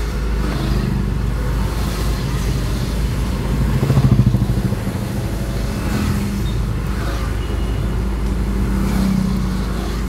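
Steady rumble of a motor vehicle engine running, swelling briefly about four seconds in.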